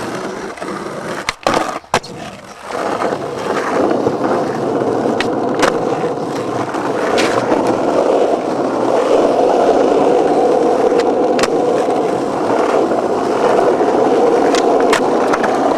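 Skateboard wheels rolling on concrete: a few sharp knocks in the first couple of seconds, then a steady rolling rumble that builds and holds, with scattered sharp clicks.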